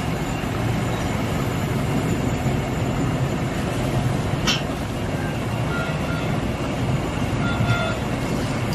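Steady rumbling roar of a stove and a large aluminium pot of meat stock at the boil, as soaked rice is poured in from a metal bowl, with a sharp clink about halfway through.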